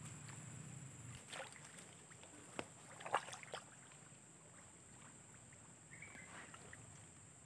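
Faint splashing and sloshing of shallow swamp water being waded through and disturbed, a few short splashes about a second and a half to three and a half seconds in, the loudest near the middle, over a steady faint high hiss.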